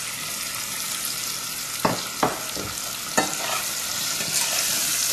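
Diced vegetables sizzling in hot oil in a stainless steel pot as a metal ladle stirs them, with a few sharp knocks against the pot about two and three seconds in.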